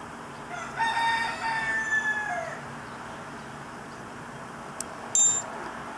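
A rooster crows once, a single call about two seconds long that drops in pitch at its end. Near the end comes a brief sharp click and clatter, louder than the crow.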